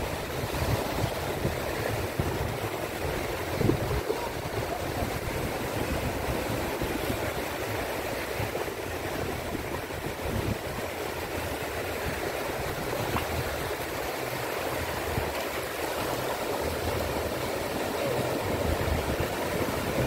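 Small waves breaking and washing in over a shallow sandy shore: a steady hiss of surf, with wind rumbling on the microphone.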